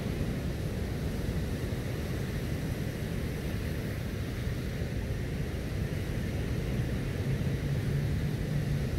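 Steady, rumbling beach noise of wind on the microphone over breaking surf. A faint low hum rises near the end.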